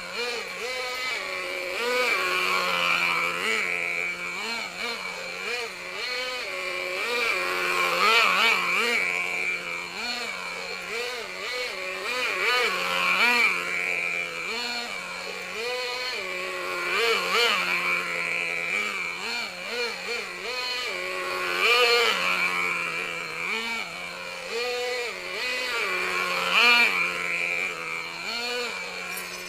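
Two-stroke VRX .18 nitro glow engine of an RC monster truck running and revving up and down again and again, several short rises in pitch every few seconds. The engine is on its last break-in tank, driven at medium speed.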